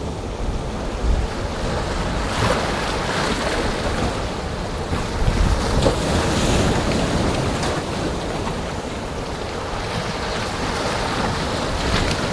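Rough sea with waves breaking and washing in every few seconds, and strong wind buffeting the microphone with a low rumble.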